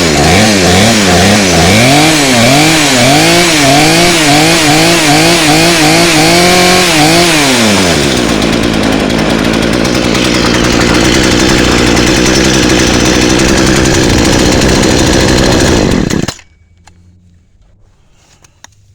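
Two-stroke chainsaw running and firing again, its no-spark fault traced to a corroded magneto connection. It is revved up and down about nine times, settles to a steady idle about eight seconds in, and cuts off suddenly about sixteen seconds in.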